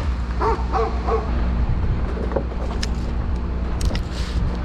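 A dog whimpering and yipping three or four short times about a second in, over the steady low hum of an engine running.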